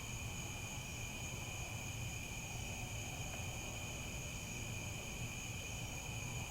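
A chorus of crickets chirping steadily, several high-pitched tones overlapping without a break, over a faint low hum.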